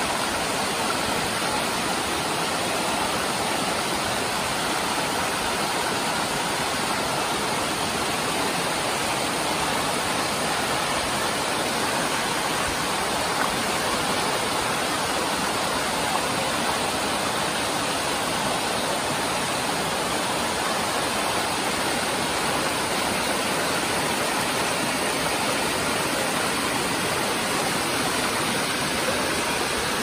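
Steady rushing of water from the Urach waterfall, cascading and tumbling over rocks in a fast, shallow stream.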